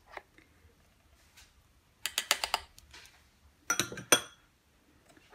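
Kitchenware being handled: a quick run of clicks and clinks about two seconds in, then a few ringing clinks a little before the four-second mark.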